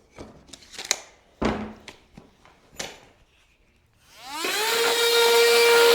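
A few light knocks of handling, then about four seconds in an electric saw's motor spins up with a rising whine and runs steadily as it cuts a piece of thin 1/8-inch wood paneling.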